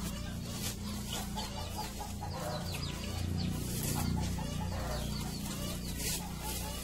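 Chickens clucking and chirping, many short calls in quick succession, over a steady low hum.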